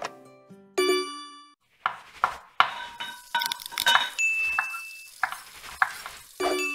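Logo-animation sound effects: a bright ringing ding about a second in, then a string of sharp clinking hits that each ring briefly, with a short steady high tone in the middle and one more ringing hit near the end.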